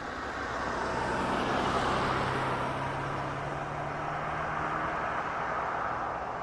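A vehicle passing by: a rushing noise that swells over the first couple of seconds and then slowly fades, with a low steady hum under it.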